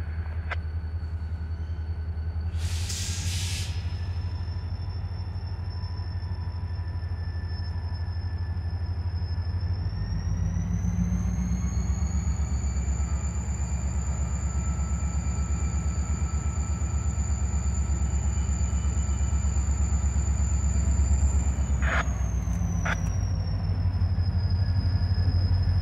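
Diesel-electric locomotive working: a steady low engine rumble that grows louder about ten seconds in as it throttles up, with a high whine that climbs and holds, then eases back down after about twenty seconds. A short hiss of air comes about three seconds in, and two sharp knocks come near the end.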